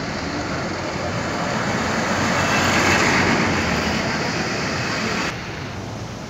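Dense road traffic passing close by: a continuous rush of engine and tyre noise from buses, cars and motorcycles. It swells to its loudest around three seconds in, then drops suddenly a little after five seconds.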